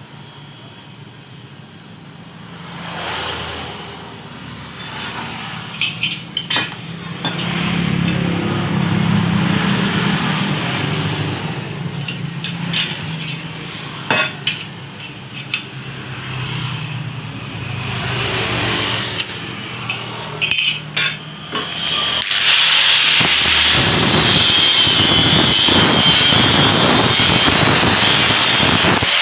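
Metalworking in a fabrication shop: a changing machine noise with scattered metal clanks and knocks, then about two-thirds of the way through a power tool starts and runs loudly and steadily.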